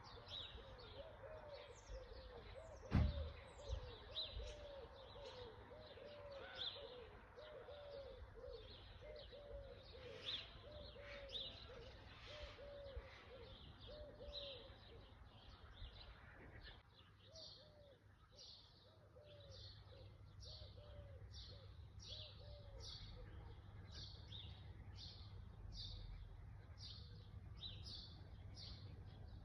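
Faint outdoor birdsong. One bird gives a low call repeated two to three times a second through the first half and again briefly later, while another chirps higher, settling into a regular series of about two notes a second in the second half. A single knock comes about three seconds in.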